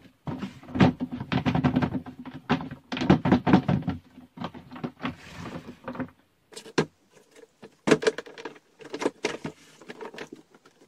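Hard plastic basket being handled: the handle and hinged lid knock and clack against the body in quick runs of clicks and thuds as it is lifted, turned and set down.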